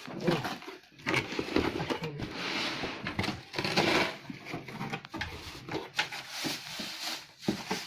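Cardboard box flaps and the plastic film wrapped around a two-burner stove rustling and crinkling as they are handled, in an irregular run of scrapes and crackles.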